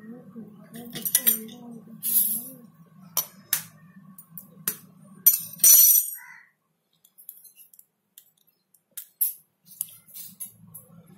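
Eggs being cracked by hand over a metal bowl: quick sharp clicks and taps of eggshell knocked and broken against the bowl, one after another. The sound drops out for about four seconds after the middle, then the clicking resumes near the end.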